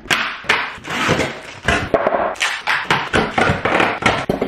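Packing being pulled out of a cardboard box: styrofoam inserts scraping and knocking against the cardboard, with plastic wrap rustling, in a quick irregular run of rustles and knocks.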